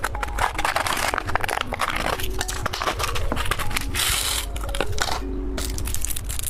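Plastic candy packaging being crinkled and torn open: a dense run of crackling clicks, with a longer tearing rasp about four seconds in.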